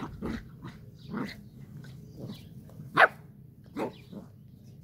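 Bernese mountain dog puppy giving a string of short, high play barks and yips while wrestling with a cat. The loudest bark comes about three seconds in.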